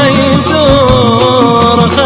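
Music from an Arabic wedding song, its melody line sliding up and down in pitch between words of the lyric.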